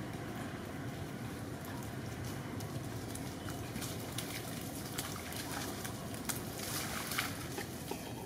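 Young monkeys wading in a shallow muddy puddle: light sloshing and small splashes, coming more often and a little louder in the last couple of seconds, over a steady low background rumble.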